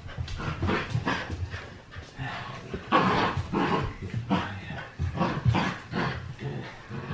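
Bernedoodle puppy panting hard in quick, noisy breaths, about two or three a second, as it tugs on a plush toy.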